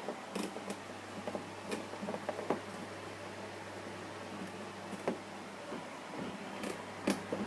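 Packaging being handled as a box is worked open: scattered light clicks and rustles, most of them in the first three seconds and a few more near the end, over a steady low hum.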